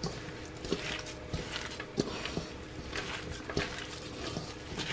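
A hand squeezing and kneading a moist broccoli ball mixture in a stainless steel bowl: soft squishing with irregular light knocks against the metal, about one or two a second.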